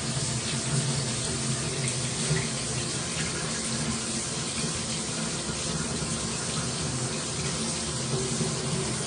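Water streaming steadily from an 8-inch stainless steel rainfall shower head, running at full flow.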